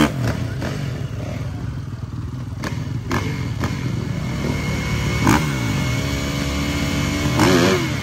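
Dirt bike engines idling, with the throttle blipped a few times so the revs rise and fall back. The blips come just at the start, about five seconds in, and strongest about seven and a half seconds in.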